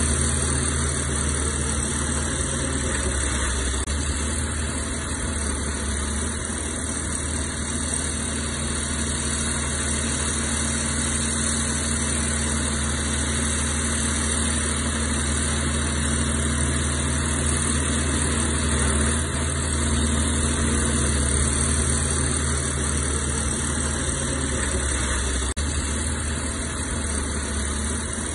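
Heavy earthmoving machinery's diesel engine running steadily, with a slight swell in level partway through.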